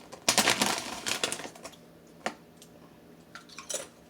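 Plantain chips being crunched in the mouth: a dense run of crunches over the first second and a half, then a few scattered crunches.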